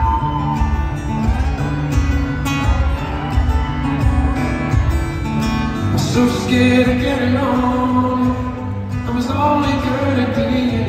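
Solo acoustic guitar played fingerstyle in a steady rhythm, with a man's voice singing along from about six seconds in.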